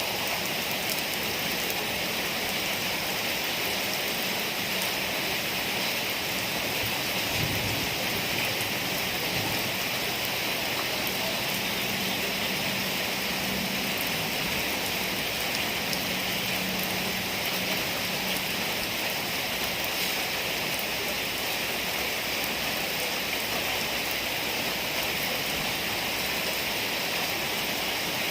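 Rain from a rainstorm falling steadily, an even hiss of drops that keeps up without a break.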